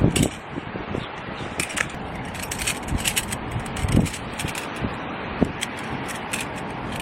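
Camping gear being handled: irregular knocks, clicks and crinkly rustles over a steady rushing background noise.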